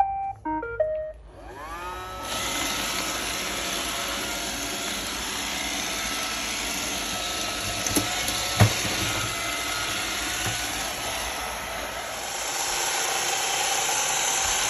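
Roomba robot vacuum plays its short start-up melody of stepped beeps, then its motors spin up with a rising whine into a steady whir as it cleans. A couple of sharp knocks come about eight seconds in, and the whir grows a little louder near the end.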